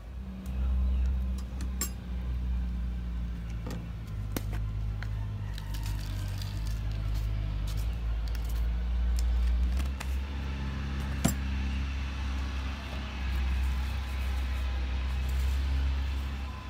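Clinks and taps of small jars, lids and a stone mortar being handled, with salt poured into the mortar in the second half, over a steady low rumble.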